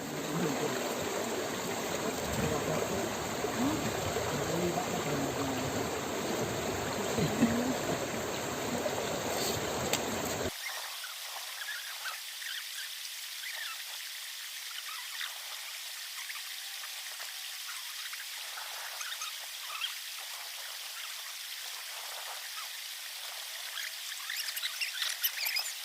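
Water running in a stream, a steady trickling rush. About ten seconds in, the lower, fuller part of the sound cuts out abruptly, leaving a thinner hiss of water.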